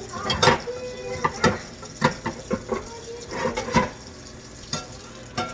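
Dishes and cutlery clinking and knocking together as they are handled: about a dozen irregular sharp clatters, some ringing briefly.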